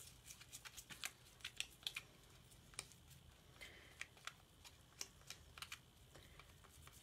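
Faint, irregular clicks and taps of a small stir stick mixing chalk paste in a plastic colour tray, scraping and knocking against the tray a few times a second.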